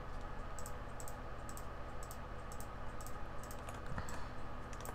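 Scattered light clicks of computer keyboard keys and mouse buttons, irregularly spaced, over a steady low electrical hum.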